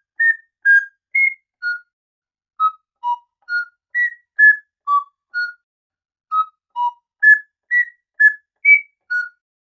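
A whistled tune of short, separate notes, about two a second, hopping up and down in pitch, with a brief pause about six seconds in.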